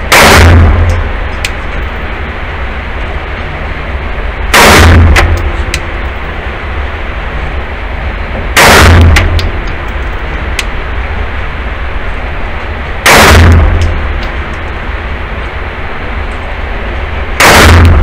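Five single pistol shots, slow and evenly spaced about four seconds apart, each very loud and echoing off the walls of an indoor range, with a few faint sharp clicks between them.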